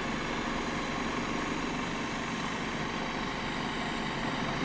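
Diesel engine of a Mercedes-Benz Unimog expedition truck idling steadily, a low even rumble.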